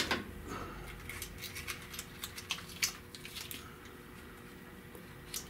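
Green masking tape being cut across with a razor blade and pressed down over an engine intake opening: a quick run of small crackling ticks for about three seconds, then a single click near the end.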